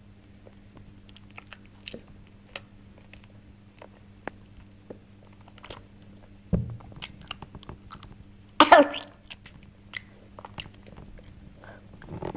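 A toddler eating mashed food with his fingers: small wet mouth smacks and clicks throughout. A low thump comes about six and a half seconds in. Two seconds later there is a short, loud vocal sound from the child.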